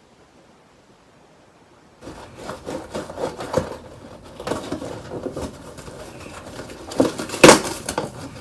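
Parts packaging being handled and opened by hand: irregular rubbing and scraping with short knocks, the loudest knock about seven and a half seconds in. The first two seconds are near silent.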